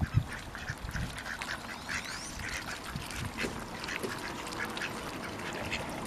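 Ducks quacking, with many short calls that come again and again and overlap.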